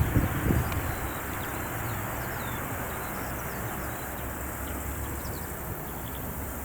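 Steady, distant roar of the Antonov An-124 Ruslan's four turbofan engines during its takeoff, with a low rumble under it and a few low thumps just at the start. Small birds chirp over it throughout.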